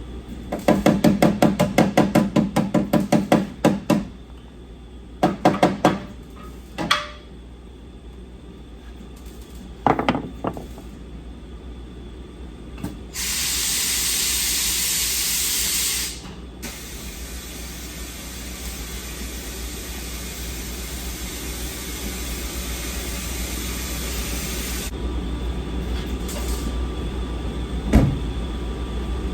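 Pneumatic tool work: several bursts of rapid, evenly spaced hammering, the longest lasting about three seconds, then a loud hiss of air for about three seconds that trails off into a softer hiss, and a single knock near the end.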